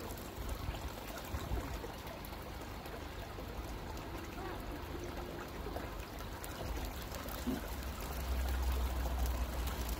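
Steady trickling and splashing of water running into a koi fry vat from a return pipe, with a low rumble coming in near the end.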